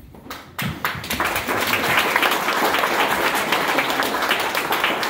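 Audience applauding: a few scattered claps about half a second in, quickly swelling into steady applause.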